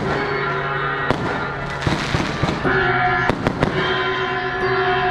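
Firecrackers going off in scattered single sharp bangs, two close together about three and a half seconds in. Steady sustained music tones come in over them about two and a half seconds in.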